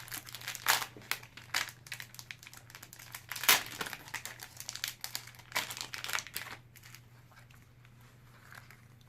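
Plastic packaging crinkling and rustling in irregular crackles as it is handled and opened, with one louder crackle about halfway through; it dies down for the last couple of seconds.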